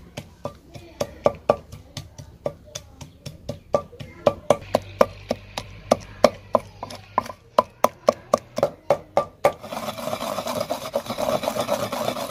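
Wooden pestle pounding a wet green chutney paste in a stone mortar, a steady run of knocks about four a second. About nine seconds in it changes to a continuous scraping as the pestle is ground round the bowl.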